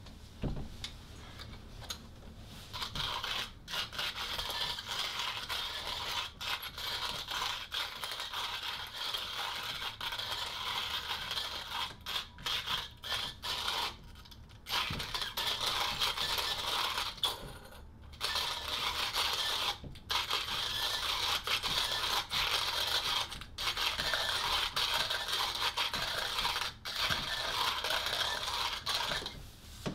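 Hand-cranked manual coffee grinder grinding roasted coffee beans as its handle is turned, starting about two and a half seconds in, with a few short breaks in the grinding.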